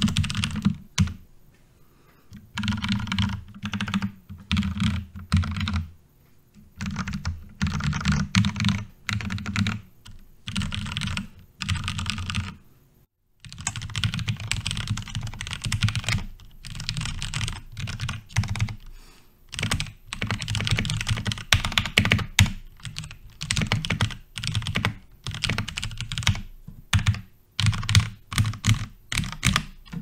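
Cooler Master MasterKeys Pro S RGB mechanical keyboard being typed on in bursts with short pauses between them. For the first stretch the case has no foam. After a brief silence about 13 seconds in, the case is dampened with neoprene rubber sheets.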